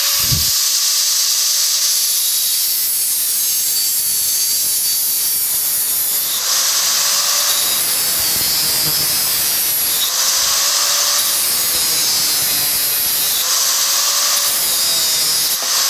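Hitachi G10SS2 4-inch 600-watt angle grinder with an abrasive cut-off disc cutting through thin square steel tubing. The motor tone sags and recovers a few times as the disc bites into the metal, over a bright, hissing grind.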